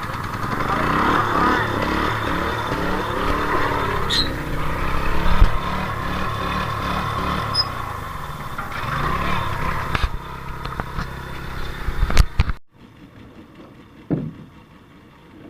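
Engine running with its pitch rising and falling over a wash of noise. It cuts off abruptly about twelve seconds in, leaving a quiet background with a few knocks.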